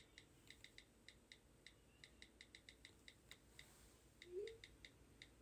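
Faint phone-keyboard typing clicks, several light taps a second in an uneven rhythm, with one short rising tone a little past four seconds in.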